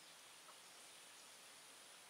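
Near silence: a faint steady hiss with a thin, steady high-pitched tone, and one faint tick about halfway through.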